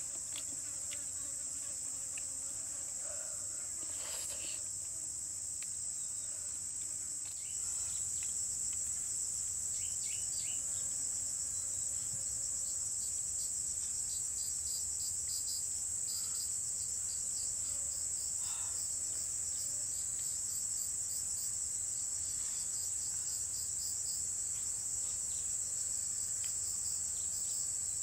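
Steady, high-pitched insect chorus in forest. About seven seconds in it grows louder and a fast, evenly pulsing trill joins the steady drone, with a few faint clicks here and there.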